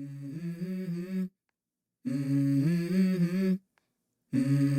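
Wordless humming of a short melody in three phrases, each stepping between a few low notes, with brief pauses between them.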